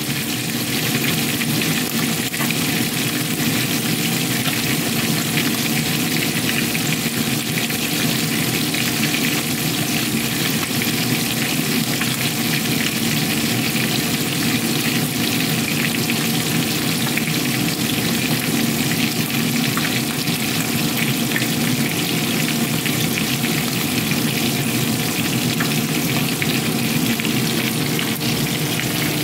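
Whole galunggong (round scad) shallow-frying in hot oil in a nonstick pan: a steady, dense sizzle with fine crackling pops and no let-up, over a faint steady hum.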